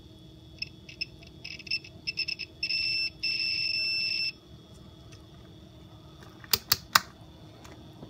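Digital multimeter's continuity beeper sounding as its probe touches the wires soldered to the iPhone 6 battery connector: a run of short stuttering beeps, then a steadier tone of about a second and a half, the beep that marks the negative terminal. Three sharp clicks follow near the end.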